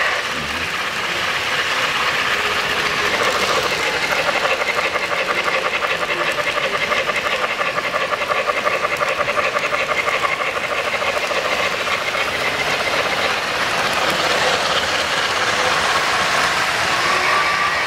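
O-gauge model trains running on three-rail track: a steady rolling clatter with a rapid, even rhythm.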